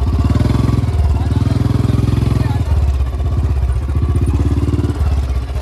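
Motorcycle engine running at low revs under load as the bike is ridden slowly over rough, rocky off-road ground. The throttle is opened and eased off, so the engine note swells and dips a couple of times.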